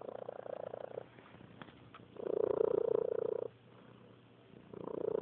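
Domestic cat purring, the loudest purr ever, coming in loud stretches of about a second and a half with quieter gaps between, a new stretch every two and a half seconds or so.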